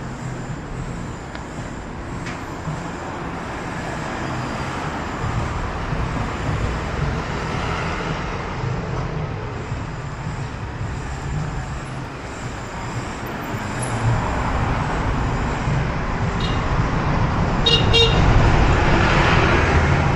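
Road traffic on a city street: cars passing steadily, growing louder as a vehicle goes by close near the end. A brief high-pitched ringing sound comes shortly before the close pass.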